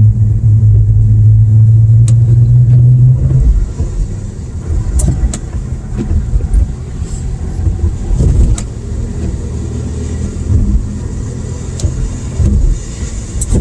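Car driving, heard from inside the cabin: a loud steady low drone for the first three seconds or so, then it drops to a quieter low rumble with a few scattered light clicks.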